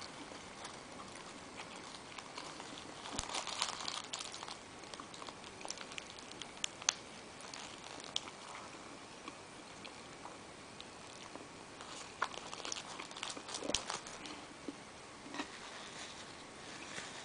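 Close-up eating sounds: chewing with small wet mouth clicks and the crinkling of a paper food wrapper, in scattered soft clicks and rustles. The rustling is busiest about three to four seconds in and again around twelve to fourteen seconds.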